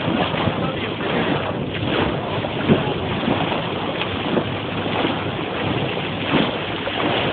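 Water rushing and splashing at the bow of a moving boat, with wind buffeting the microphone: a steady rush with small irregular surges.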